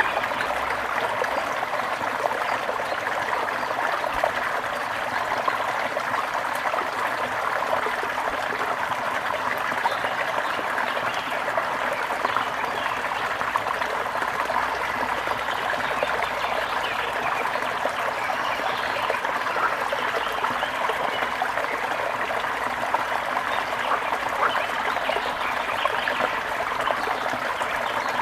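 Gently flowing river water, a steady trickling and babbling stream sound without pause.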